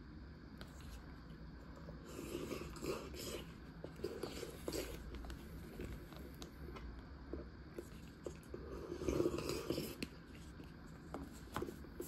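Close-up eating sounds from a person eating 7-Eleven samgyetang (Korean chicken ginseng soup): several short bouts of chewing or sipping with light clicks and scrapes, the loudest about three-quarters of the way through.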